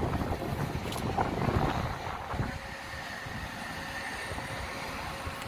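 City street traffic running by, with wind buffeting the microphone; the buffeting is heavier in the first couple of seconds, then settles to a steadier traffic noise.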